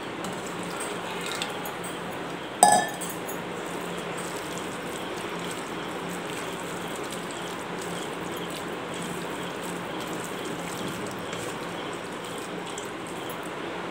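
Water poured from a steel tumbler into a stainless-steel bowl of rava adai batter, with one sharp metallic clink and short ring about two and a half seconds in as the steel cup knocks against metal. Afterwards the batter is stirred with a silicone spatula over a steady low hum.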